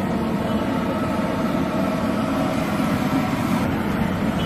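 Batter-coated vadas deep-frying in a large kadai of hot oil, a steady sizzle over a continuous low hum of street noise.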